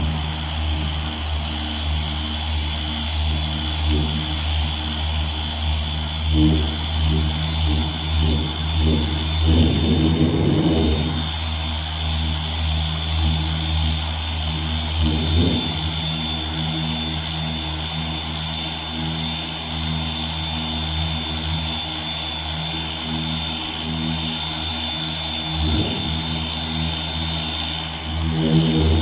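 Dual-action (DA) sander with an 80-grit disc running steadily against the Nova's sheet-steel body panel, sanding off surface rust: a constant high whine over a low hum, swelling now and then as it is pressed harder.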